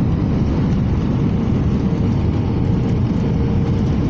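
Jet airliner cabin noise on approach: a steady, loud rumble of engines and airflow heard from inside the cabin, with a faint steady tone running through it.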